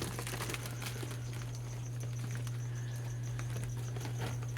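A steady low hum with faint, scattered rustles and light taps as the bagged animals in the shipping box are handled.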